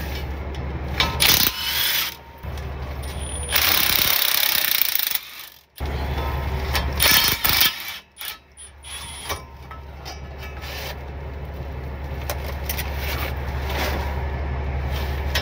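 Cordless electric ratchet running in short spells, spinning out the U-joint strap bolts at a truck's rear axle yoke to uncouple the driveshaft for towing in neutral. A steady low hum runs underneath, with a brief break about five seconds in.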